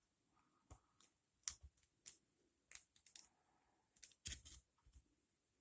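Lock pick working the pin stack of an ASSA Ruko padlock: faint, irregular small clicks and taps as pins are lifted and set.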